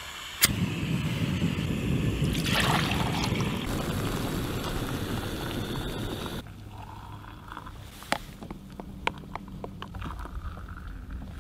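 A ferro rod is struck over a Jetboil gas stove, and the burner catches and burns with a steady roar for about six seconds before cutting off abruptly. After that it is quieter, with a few sharp clicks, and near the end hot water is poured into an AeroPress.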